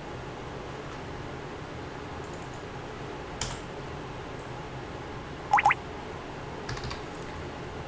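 A few sparse computer keyboard and mouse clicks over steady background noise, with two quick pitched blips a little past halfway that are the loudest sounds.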